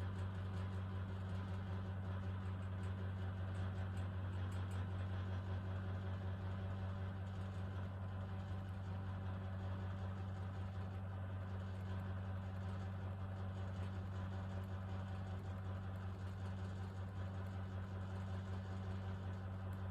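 Small 12 V DC ceiling fan running, its motor giving a steady low hum with faint higher tones above it.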